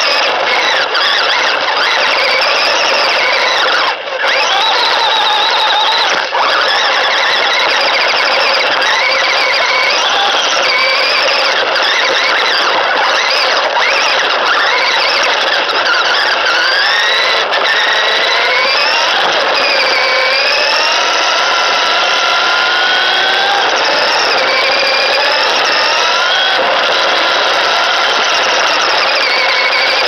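LaTrax Teton RC truck's electric motor and gears whining loud and close, heard from a camera on the truck, the pitch sweeping up and down with the throttle as it drives. The sound dips briefly about four and six seconds in.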